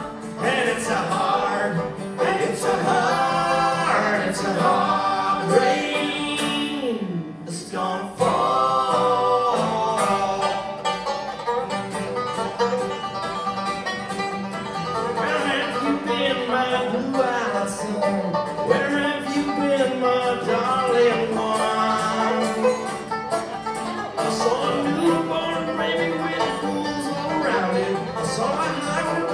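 Live band playing a bluegrass-flavoured folk arrangement led by banjo and acoustic guitars, with a bending melodic lead line on top. The music drops briefly about seven seconds in, then carries on.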